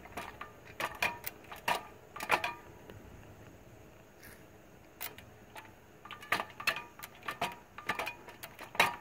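Hand-operated hydraulic pump being stroked one-handed, its lever and fittings giving a run of sharp metallic clicks and clinks, with a lull of about two seconds in the middle. It is pumping fluid into the Workhorse J72 auto park brake to build about 1500 psi, which releases the brake without the failed electric pump.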